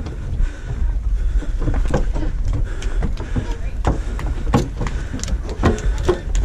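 Wind buffeting the microphone as a low, continuous rumble, with irregular thumps and knocks every half second or so, more of them in the second half.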